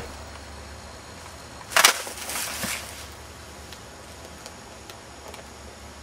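A single sharp crack about two seconds in, followed by about a second of crunching in dry twigs and leaf litter. After that only a faint, steady low hum with a few small ticks.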